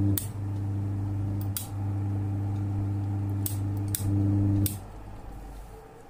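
Three-speed cooler fan motor running with a steady electrical hum while its rotary speed switch is turned by hand. The switch clicks about five times as it steps through positions, the hum breaking briefly at some clicks and dropping away near the end.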